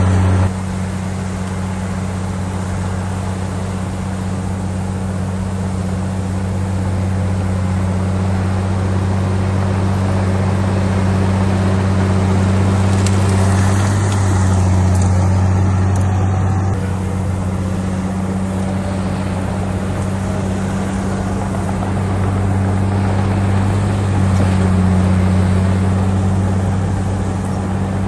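Heavy diesel earthmoving machinery running steadily, a low drone that swells and eases a little over time.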